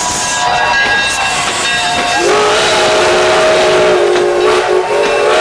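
Steam locomotive blowing its chime whistle: several notes sounding together, which slide up as the whistle opens about two seconds in and hold steady for about three seconds. Under and before it is the hiss of escaping steam.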